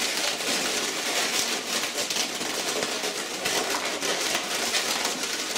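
Inflated latex modelling balloons (260s) being handled and twisted, rubbing against each other in a steady dense crackle of latex as a small red balloon is tied onto the figure.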